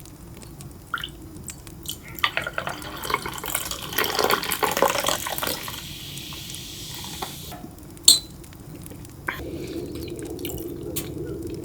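Liquid poured into a glass for a few seconds, with small clinks around it, then one sharp clink about eight seconds in.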